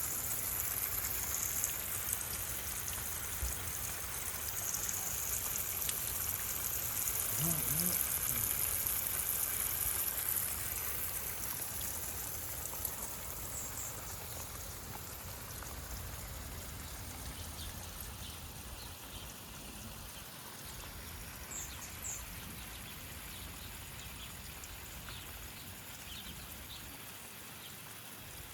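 Steady hiss of running, trickling water, louder in the first half and gradually fading.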